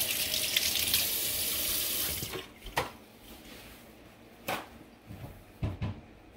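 Kitchen faucet running into the sink as a hand is rinsed under it, shut off a little over two seconds in. A few short knocks follow.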